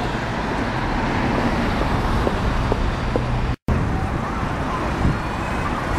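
Street traffic noise: cars and vans running along a city road, a steady rumble. It drops out briefly at a cut about three and a half seconds in.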